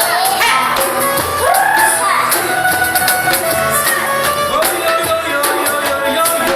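Music with singing: voices sliding up and down in pitch over a steady percussion beat.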